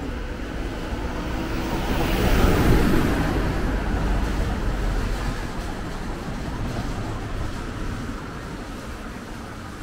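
City street traffic, with one vehicle passing close by: a rumbling whoosh that swells to its loudest about two and a half seconds in, then slowly fades.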